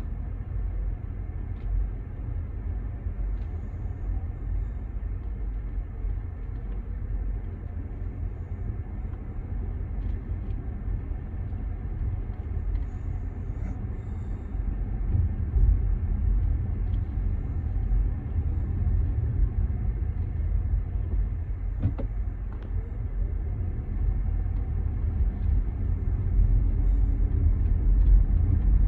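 Steady low rumble of a moving vehicle, getting louder about halfway through.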